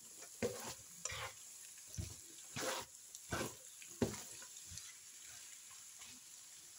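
A spatula stirring and scraping carrots and scrambled egg around a nonstick frying pan, a stroke every half second or so, over a faint sizzle of frying. The strokes thin out after about four seconds.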